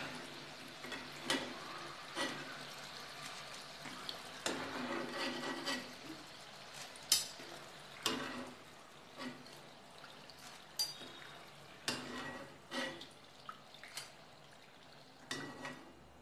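Perforated steel ladle scraping and clinking against a metal kadhai and a wire-mesh strainer as fried snack sticks are lifted out of hot oil, over a faint sizzle of the oil. Scattered sharp clinks, a few louder ones about halfway through.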